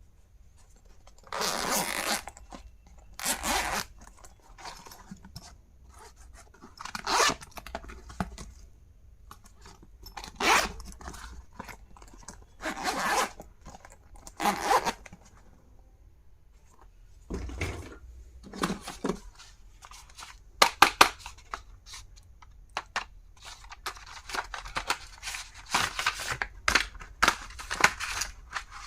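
Stationery and its packaging being handled and opened: short rasping strokes every second or two, with quicker clicks and taps toward the end.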